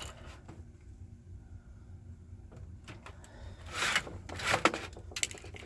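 Handling noise: two short scrapes or rustles of parts being moved, followed by a few light clicks, over a faint low hum.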